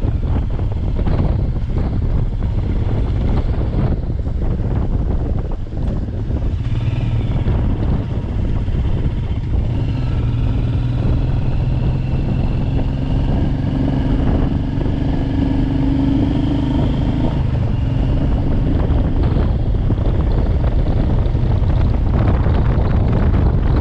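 Wind buffeting the microphone of a moving motorcycle, a steady loud rumble over the engine. In the middle an engine hum with a steady pitch comes through more clearly for several seconds.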